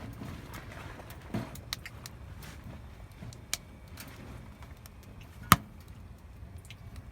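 Burning firewood crackling with scattered sharp pops, one much louder pop about five and a half seconds in, over a low steady rumble.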